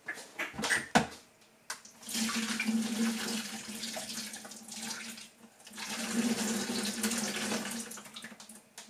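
Boiled potatoes being drained: water from the pan pouring into a sink, in two spells of a few seconds each, after a couple of sharp knocks of the pan about a second in.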